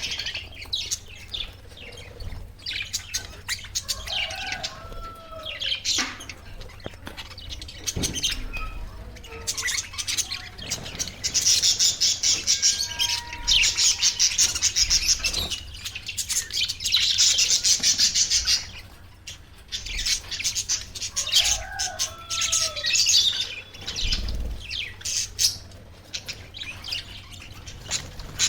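Pet budgerigars chirping and chattering in rapid, overlapping trains of high chirps. The chatter is loudest and busiest in the middle, with scattered short clicks among the calls.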